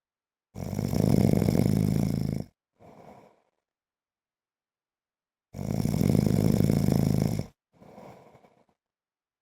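A man snoring in his sleep: two long, loud snores about five seconds apart, each followed by a short, quieter breath.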